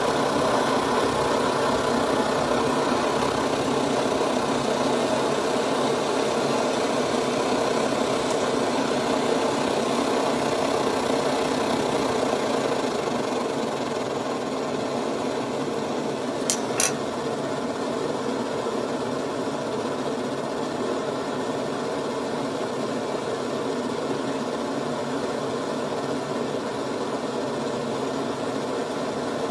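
Optimus 111B white-gasoline pressure stove's burner running with a steady rushing noise at full flame. About 13 s in it is turned down and runs a little quieter. Two sharp clicks come a few seconds later.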